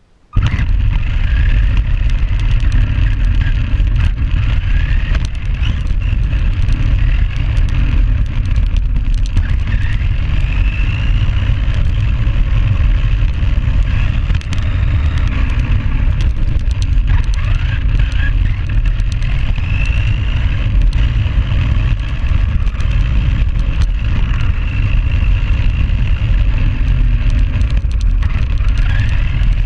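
Tamiya Grasshopper RC buggy heard from a camera mounted on its body: a loud, steady rumble of the chassis and tyres running over the ground, with the electric motor's whine rising each time the car speeds up, several times.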